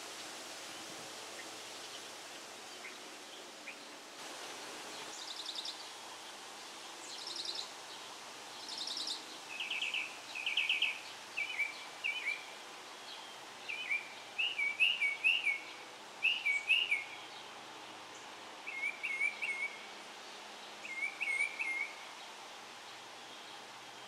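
A wren singing in short rolling phrases. After a few high trilled bursts it settles into groups of two or three quick looping notes, repeated about every second or two, over a steady outdoor background hiss.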